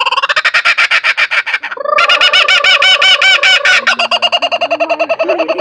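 Laughing kookaburra calling: a long run of fast, repeated cackling notes, loudest for a couple of seconds in the middle.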